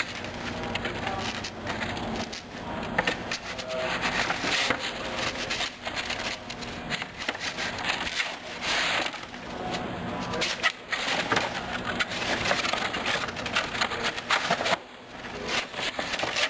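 Cardboard divider pieces being handled and slotted into each other: irregular rustling and scraping with many light clicks.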